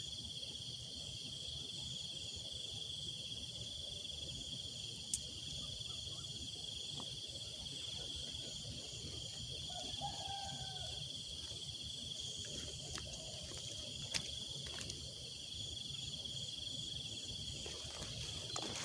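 Steady high-pitched trilling of a chorus of night insects, with a couple of sharp clicks, one about five seconds in and one near fourteen seconds.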